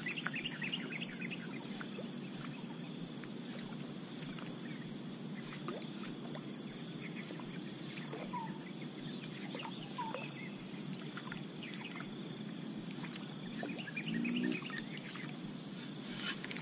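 Pond-side outdoor ambience: a steady high insect drone over low, even background noise, with scattered short bird chirps and calls throughout and a brief low call about fourteen seconds in.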